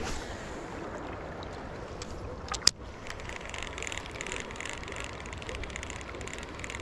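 Baitcasting rod and reel on a cast and retrieve: a single sharp click about two and a half seconds in, then the reel being cranked with a light, fast whir, over a steady low rush of wind and river.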